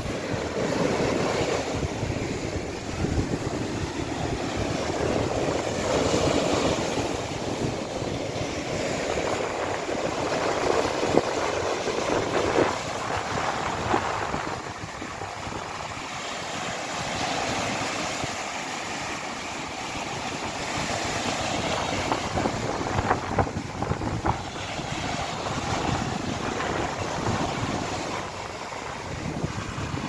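Small sea waves breaking and washing up over a sandy shore, the foamy surf hissing as it runs in and draws back, rising and falling every few seconds. Wind buffets the microphone with a low rumble.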